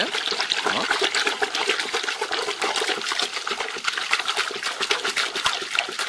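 Hand swishing and splashing water in a bucket, stirring washing powder in to whip up a foam: a continuous run of quick splashes.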